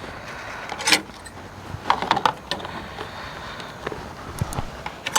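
A few scattered light clinks and knocks of dishes and utensils being handled, over a steady background hiss.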